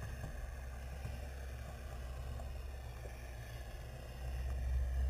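Low, steady underwater rumble picked up by an underwater camera, growing louder about four seconds in.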